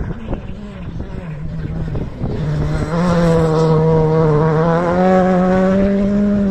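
Rally car engine running hard at high revs as the car comes past on a gravel stage. It grows loud about three seconds in, and its pitch steps up a couple of times.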